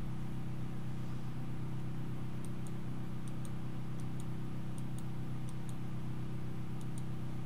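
Computer mouse clicking about a dozen times, faint sharp clicks mostly in pairs, starting about two and a half seconds in, over a steady low hum.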